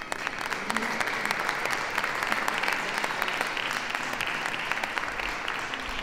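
Crowd applauding, a dense patter of many hands clapping that builds up over the first second and eases slightly near the end.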